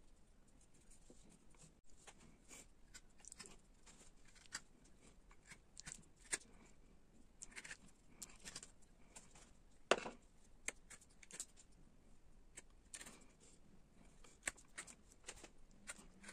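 Hand-held carving chisel paring a linden wood block: a run of short, irregular slicing and scraping cuts, with one sharper knock about ten seconds in.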